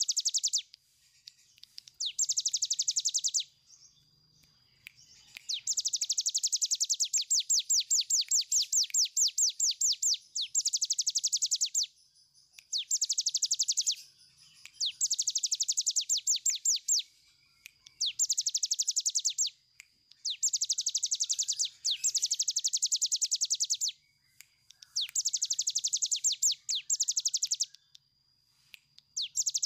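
Caged ciblek gunung (cigun), a prinia, singing its long drilling 'ngebren' song: very fast, rattling, buzzy trills in bouts of one to several seconds, repeated about ten times with short pauses between.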